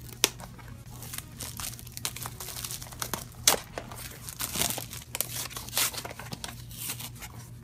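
Hands crinkling and tearing open a Funko Mystery Minis blind-box package: an irregular run of crackles, rips and clicks, loudest about a third of a second in and again about three and a half seconds in. A steady low hum runs underneath.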